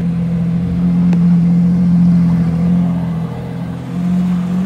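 A car engine running loudly at a steady, held pitch, easing off slightly about three seconds in.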